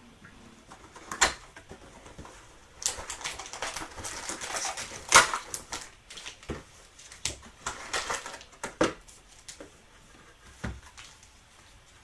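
Cardboard trading-card hobby box being opened and its sealed card packs taken out by hand: rustling and crinkling of the wrappers, with scattered sharp taps and clicks. The rustling is thickest about three to five seconds in.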